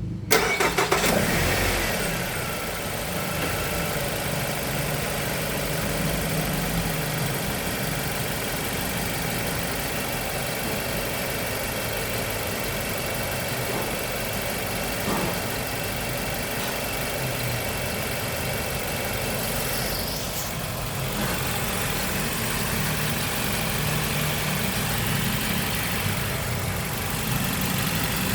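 Nissan QR20DE four-cylinder engine running at idle, louder for a second or two just after the start and then settling. It has a loud cam noise and a faint chirping or squeaking, which the owner figures most likely comes from the timing belt.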